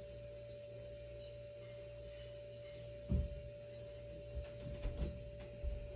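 A steady, even single tone with a low hum under it. From about three seconds in come a few dull, low thumps.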